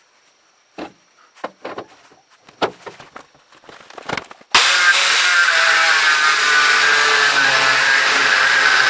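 A few scattered knocks and clunks as the rusty steel hammer head is handled. About halfway through, an angle grinder starts abruptly and its disc bites steadily into the steel hammer head.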